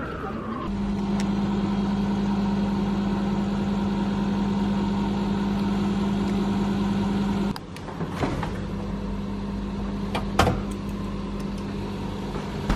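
Microwave oven running with a steady, even hum while reheating food. The hum drops away about seven seconds in, followed by a few sharp clicks and knocks.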